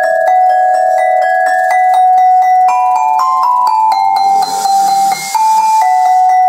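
A 3.5-octave selophone, a metal-bar mallet instrument with tube resonators, played with hard mallets: quick repeated strokes of about four or five a second ring out on the metal bars. The tune climbs a little about three seconds in and settles back down near the end.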